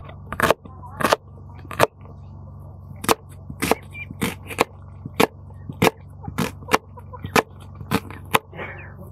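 Chef's knife cutting through a red onion and knocking on a wooden cutting board, a sharp tap with each stroke, roughly two a second with a short pause about two seconds in.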